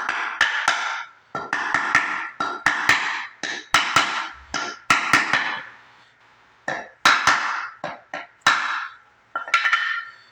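A hammer striking a wooden block over and over to drive a bearing race into a wheel hub, about two blows a second with two short pauses. Each blow leaves a brief metallic ring.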